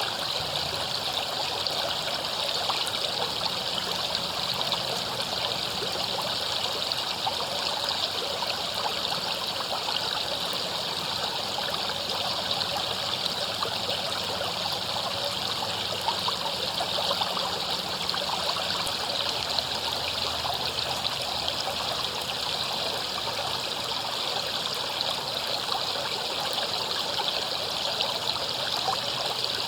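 River water flowing steadily over rocks, a continuous babbling and splashing rush.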